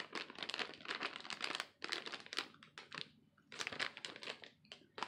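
Plastic makeup-sponge packet crinkling in the hands as it is turned over, in about four spells with short pauses between.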